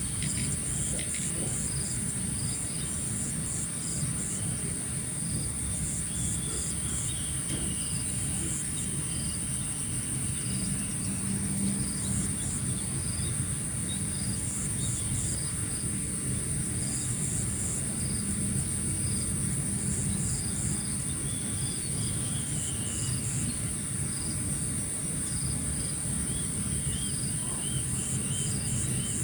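Morning outdoor ambience dominated by a steady, very high-pitched insect trill, with shorter chirps repeating about once a second over it. A few wavering calls come through now and then, over a low steady rumble.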